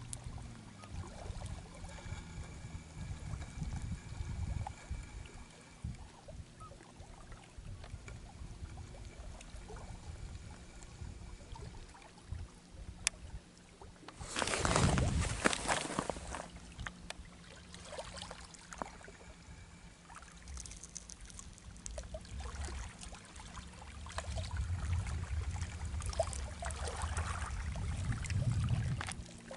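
Water lapping and splashing at the edge of a lake, with a louder rush of water about halfway through, over a low, uneven rumble.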